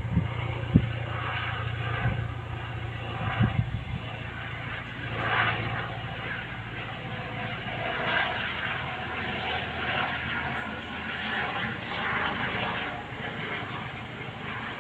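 Eurocopter EC135 helicopter flying past overhead: steady rotor and turbine noise, the low rotor beat weakening after about five seconds. A few short low thumps in the first four seconds.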